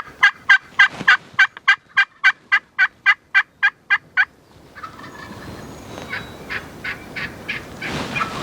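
Wild turkey yelping: a long run of about fifteen short, evenly spaced yelps, roughly four a second, then after a brief pause a fainter second run of yelps.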